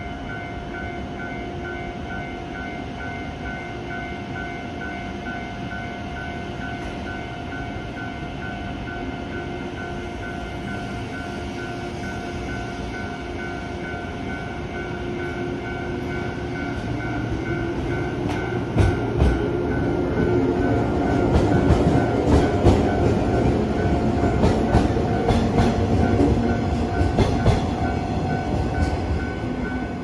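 A 115 series electric train pulling out of the station and running past. Its traction motors hum, rising in pitch as it speeds up from about halfway through. From about two-thirds of the way in, the wheels clack over rail joints and points in quick clicks, loudest as it goes by.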